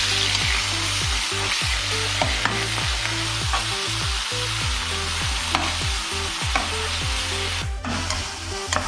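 Small chicken pieces sizzling steadily as they fry in olive oil and soy sauce in a hot pan, with scattered clicks of a utensil stirring them. A soft beat of background music runs underneath.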